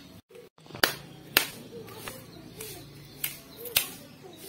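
A split coconut being worked apart by hand: a few sharp cracks and clicks as the white flesh is pried out of the shell.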